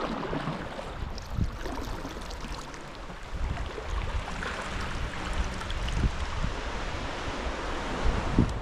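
Sea water washing and splashing, with wind buffeting the microphone.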